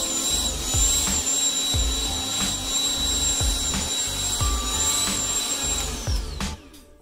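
Corded electric tiller's motor running with a steady high whine, then switched off about six seconds in, the whine falling away as it spins down. Background music with a steady beat throughout.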